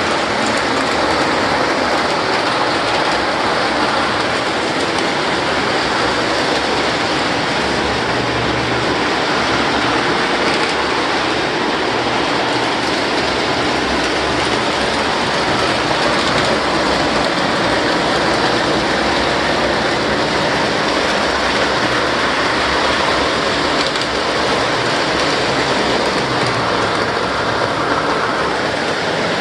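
Several O-gauge model trains running together on three-rail track: a steady, loud rolling rumble and clatter of wheels and motors.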